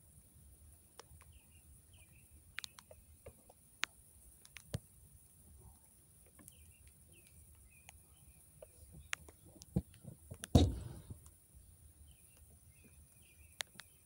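Small birds chirping now and then, with a few scattered sharp clicks and knocks, the loudest about ten and a half seconds in.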